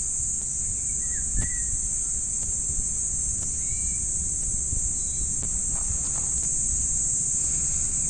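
A steady, high-pitched chorus of insects, with a few short bird chirps over it, about a second and a half in and again near four seconds.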